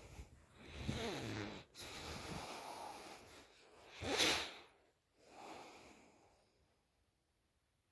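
A woman snoring open-mouthed in her sleep. There is a buzzing snore breath about a second in and a long breathy one after it, then the loudest, a short sharp breath a little past halfway, and a softer breath after that.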